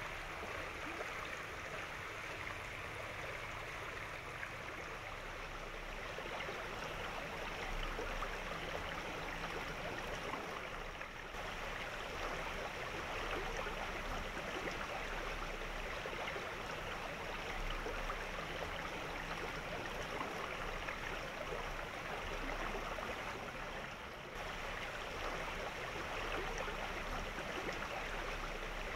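Steady rush of flowing stream water, an even hiss that briefly dips twice.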